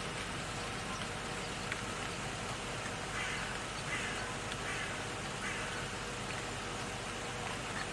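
A crow cawing: four harsh caws in a quick run from about three seconds in, over a steady background hiss.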